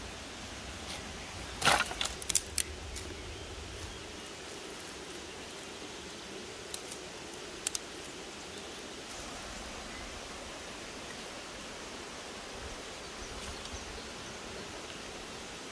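Dry wooden sticks and twigs cracking and clattering as they are snapped by hand and laid onto a pile of kindling. A quick cluster of sharp cracks comes about two seconds in, and a few single snaps follow near the middle, over a steady background hiss.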